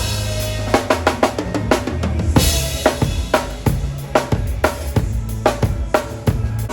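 Drum kit playing a funk groove: kick, snare and rimshot strikes in a busy pattern, with cymbal crashes near the start and about two and a half seconds in. Sustained low notes run underneath.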